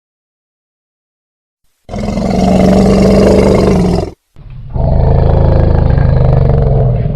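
Elephant roaring: two long, loud, low-pitched calls starting about two seconds in, with a brief break between them. The second call is lower than the first.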